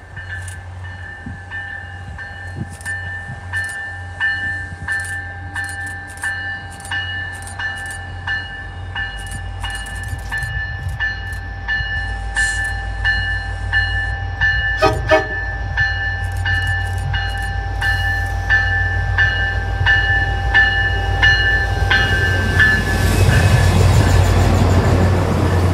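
MBTA commuter train led by an MP36PH-3C diesel locomotive approaching and passing close by: the rumble of the engine and wheels grows steadily louder and is loudest as the locomotive goes past near the end. Throughout, a bell rings about twice a second, and there is a brief horn note about midway.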